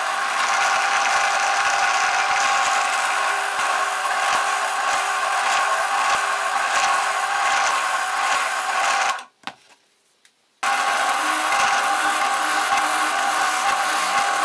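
Drill press running and boring holes through 18 mm plywood, a steady motor hum under the rasp of the bit cutting wood. It stops for about a second and a half around nine seconds in, then runs again.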